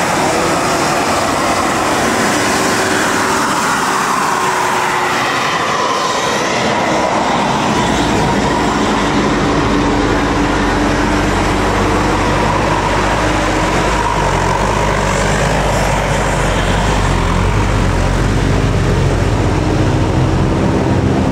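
Big tour buses running close by, diesel engines rumbling, with long held horn-like tones over the traffic noise. The deep engine rumble swells in about eight seconds in and stays loud.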